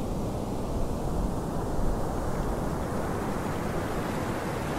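Steady rushing noise of wind and surf, heaviest in the low end and with no tones in it, growing a little brighter about halfway through.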